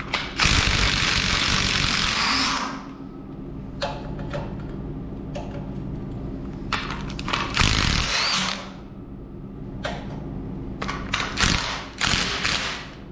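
Cordless impact wrench hammering as it backs out the cover-plate bolts of a dry pipe sprinkler valve, opening the valve to reset it after a trip. It runs in three spells: a long one at the start, another in the middle and a few short bursts near the end.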